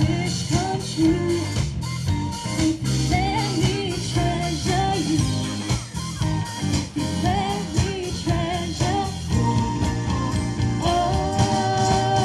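A live rock band playing a song: drum kit beating steadily under electric guitars, with a lead vocalist singing over the top and holding a long note near the end.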